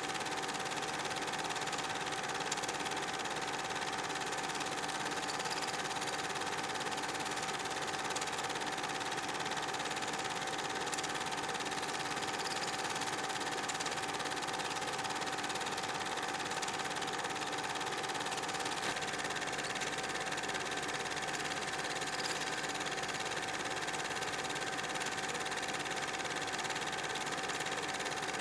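Cine film projector running: the steady mechanical whirr of its motor and film transport, with a constant tone.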